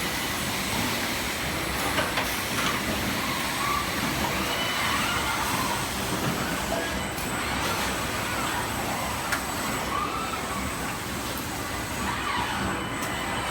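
Steady factory machinery noise of an automated car body-shop welding line, with short rising-and-falling whines several times and a few sharp clicks.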